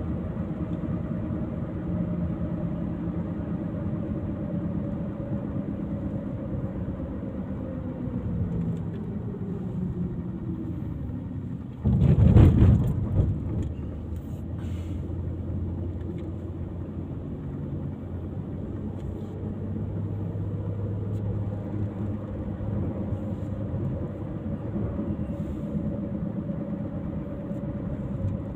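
A vehicle's engine running while on the move, its pitch sinking for a couple of seconds as it slows, then running steadily. About twelve seconds in, a loud rushing burst lasts for a second or so.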